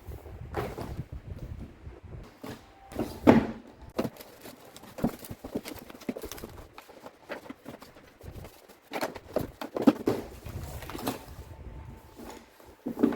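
Books and notebooks being handled and set down on a shelf: irregular knocks and thuds with rubbing and sliding between them, the loudest knocks about three seconds in, around ten seconds in and just before the end.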